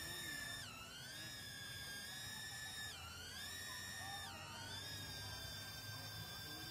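Nano quadcopter's motors and propellers whining in flight, a faint, steady high-pitched whine. Three times the pitch drops sharply and glides back up as the throttle changes.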